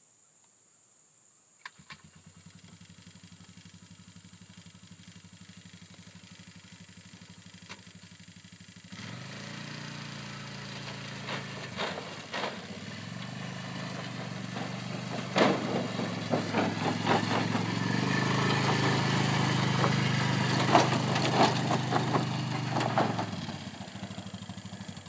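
An engine starts about two seconds in and runs steadily. It gets louder about nine seconds in, with sharp knocks and rattles over it, and dies away near the end.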